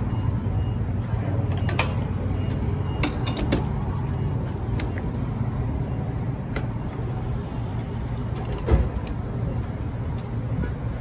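Steady low mechanical hum at a gas station fuel pump, with a few sharp clicks and a louder knock about nine seconds in, as the pump and nozzle are handled.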